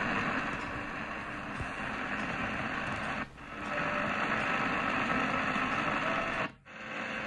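Medium-wave static hissing from the Eton Field BT Grundig Edition radio's speaker as it is tuned between AM stations. The hiss cuts out briefly about three seconds in and again near the end, as the radio mutes while stepping to the next frequency.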